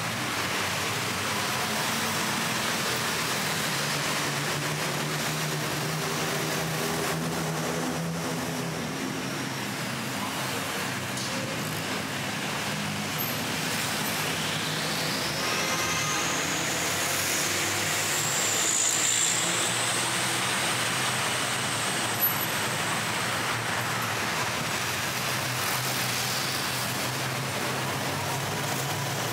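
Busy city-road traffic running steadily, cars and heavier vehicles passing. A high whine rises in pitch about halfway through, and there is a single short click later on.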